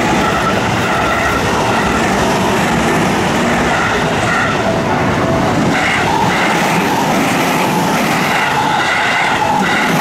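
Electric commuter trains passing over a level crossing at close range: a loud, steady rumble and clatter of steel wheels on the rails as the cars go by.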